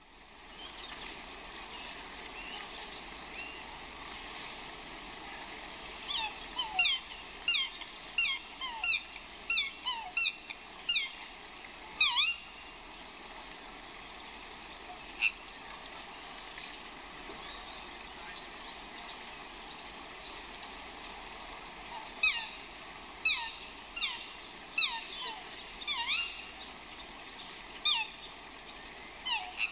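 Swans squealing in two runs of short, high calls that slide downward, about one and a half a second, the first starting about six seconds in and the second about twenty-two seconds in, over a steady hiss of rain.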